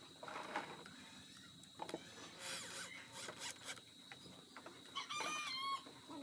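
Scraping, rubbing and knocking of hand tools working wood, in irregular strokes. A short, high, wavering squeal comes about five seconds in.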